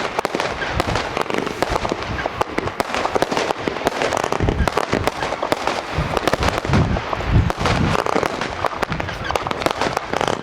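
Fireworks going off: a dense, unbroken run of rapid crackles and bangs.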